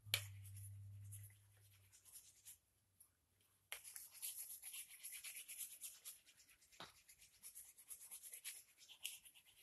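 Faint, quick rubbing strokes of a deer-antler burnisher worked along a carved wooden spoon's handle, starting about four seconds in.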